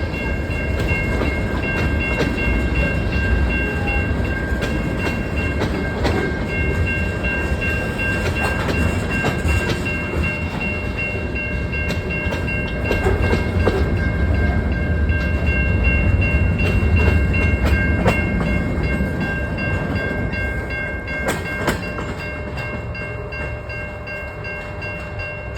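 CN train's cars rolling past with a low rumble and repeated wheel clicks, while steady high ringing tones carry on throughout. The rumble swells about two-thirds of the way through and eases off near the end.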